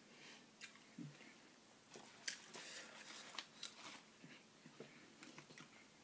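Soft crinkling and clicks of a foil-paper sandwich wrapper as a chicken sandwich is picked up and pulled apart, busiest around the middle, with faint chewing and mouth sounds.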